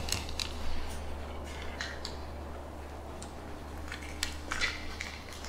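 Scattered small clicks and rustling from hands handling a small voice recorder while it rewinds, over a faint steady low hum.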